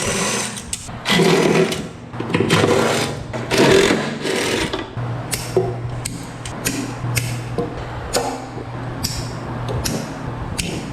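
Tools and metal parts clicking and clattering as an electrical cabinet is taken apart, over a steady low hum; the knocking is busiest in the first half.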